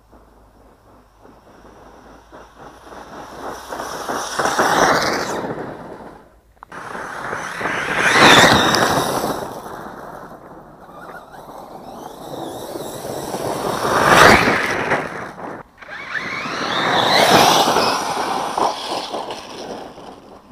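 A 1/8-scale electric 4WD RC monster truck (Hobbyking Nitro Circus Basher MT) driving past on a gravel dirt track four times, each pass swelling up and fading away: motor whine with tyres and thrown stones on the gravel. Two of the passes cut off suddenly.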